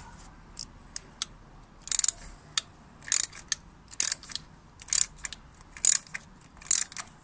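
Socket ratchet clicking in short bursts about once a second as the handle is swung back and forth, with a few single clicks before the bursts start. It is turning a spark plug out anticlockwise through a 16 mm socket on an extension bar.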